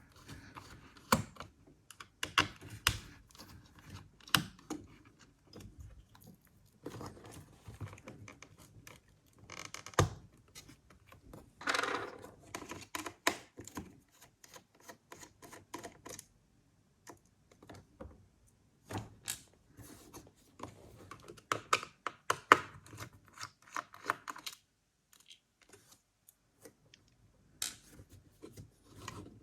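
Irregular small clicks, taps and short scrapes of a precision screwdriver working loose the screws of a laptop's heatsink and fan assembly, with screws and small parts being handled, and a brief lull near the end.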